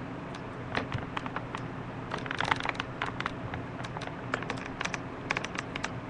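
Irregular sharp clicks and scratches, densest two to three seconds in, over a steady low electrical hum.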